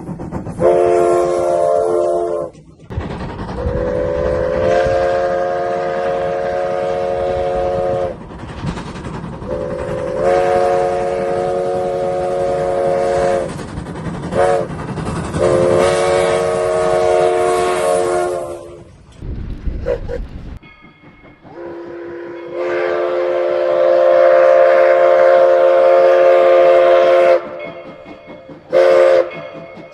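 A locomotive's multi-note chime sounds long, long, short, long blasts over the rumble of the moving train: the grade-crossing signal. The rumble then cuts off abruptly, and the chime gives another long blast followed by short blasts near the end.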